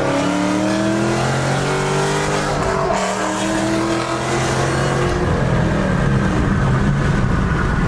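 2012 Shelby GT500's supercharged 5.4-litre V8, breathing through long tube headers and an off-road X-pipe, revving up under acceleration in second gear. Its pitch drops at a gear change about three seconds in, then climbs again and levels off.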